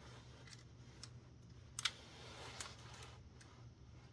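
A few light clicks and taps of small plastic and metal parts being handled while a film camera is taken apart, scattered over the few seconds with the sharpest click near the middle.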